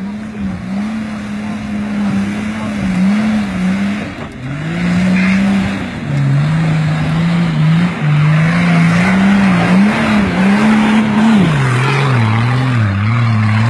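Off-road 4x4's engine revving hard and unevenly on a steep loose-dirt climb, its pitch rising and falling with the throttle and dropping lower near the end. Tyres spin and scrabble on the gravel, and the engine grows louder as the vehicle comes close.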